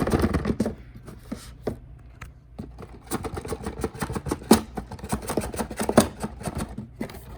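Cardboard cube box and its plastic packaging being handled and opened by hand: a run of rustling and light clicks, with two sharper taps about four and a half and six seconds in.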